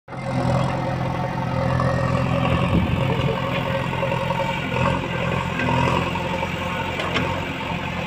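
JCB 3DX backhoe loader's diesel engine running steadily while the backhoe arm works, with a faint knock about seven seconds in.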